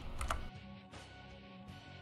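Quiet background music with sustained notes.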